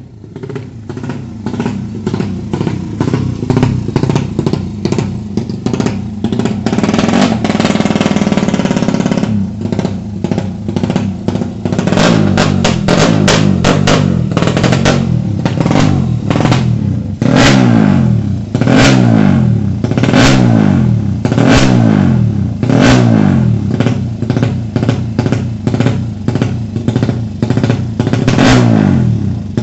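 Suzuki Satria FU drag bike's single-cylinder engine, bored to 200 cc, running with a steady note that builds in the first few seconds. From about halfway it is revved in repeated throttle blips, each falling away in pitch, roughly every one and a half seconds.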